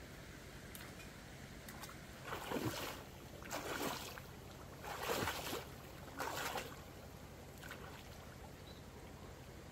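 Water splashing four times, about a second apart.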